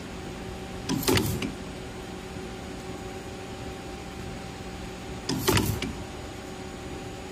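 Cereal bar cutting machine running with a steady hum, its guillotine cutter making two short cutting strokes about four and a half seconds apart, each a brief mechanical burst.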